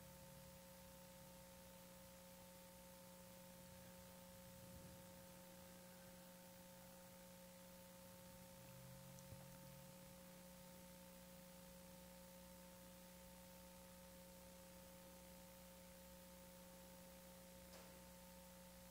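Near silence: room tone with a faint, steady hum of a few held tones.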